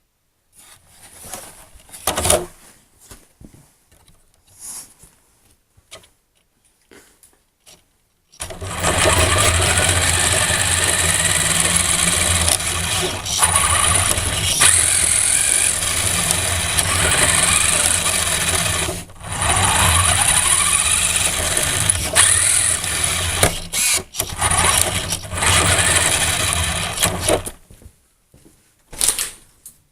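Small radio-controlled car's motor running and revving up and down, a steady high whine with gliding pitch, starting suddenly about eight seconds in and stopping shortly before the end, with a short burst after it. Scattered short knocks and clicks come before it starts.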